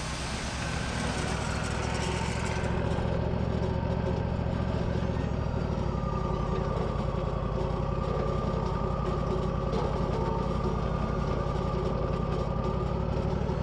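Portable sawmill's engine running steadily through a cut in a log, with a steady high whine joining about six seconds in.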